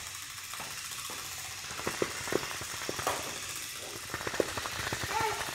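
Pull-string motor inside a plush toy engine running down after release, a steady rattling whirr with scattered clicks as the toy rolls across a wooden floor.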